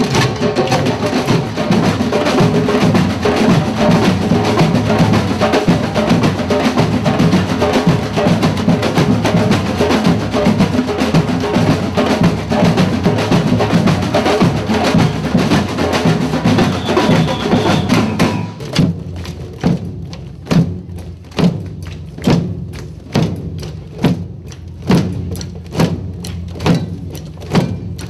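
Many drums beaten together in dense, continuous group drumming. About two-thirds of the way through it thins out to a steady beat of roughly one and a half strokes a second, with scattered lighter taps in between.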